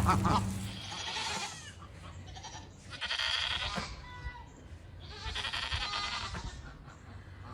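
Nigerian Dwarf goats in rut bleating: three loud calls about two seconds apart.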